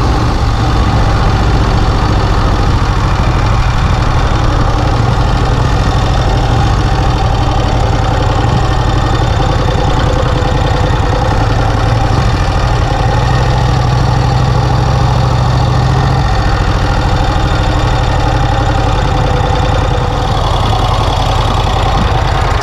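1951 Vincent Rapide's 998 cc V-twin engine running steadily on the road, its note holding level with only slight changes.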